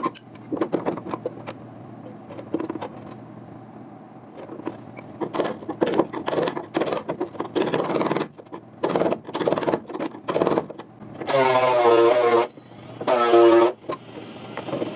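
Irregular knocks and scrapes of metalwork on rusted sheet-steel car body panels. Then, from about eleven seconds in, a power tool runs in short bursts of about a second each, with a steady pitch that sags slightly while it cuts.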